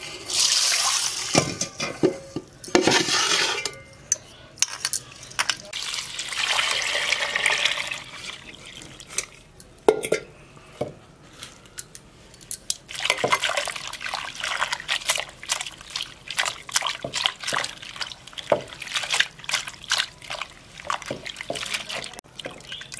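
Water splashing and sloshing in metal bowls as split lentils and then chopped spinach are washed by hand, with small knocks of the bowls. Through the second half, a hand swishes the spinach leaves around in a basin of water, with splashing and dripping.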